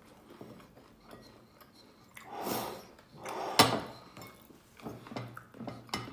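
Eating rice by hand from a glass bowl: a soft rustling swell, then one sharp knock about three and a half seconds in, followed by small clinks and scrapes as fingers work the food against the glass.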